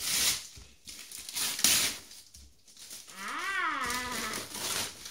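Wrapping paper tearing and rustling in two short bursts as a present is unwrapped, then, about three seconds in, a person's long drawn-out vocal call that rises and then falls in pitch.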